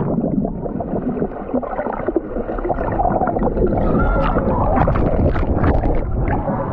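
Muffled underwater sound of shallow river water, heard by a microphone submerged in the stream: dull gurgling and bubbling with short sharp ticks and splashes, busiest from about the middle on.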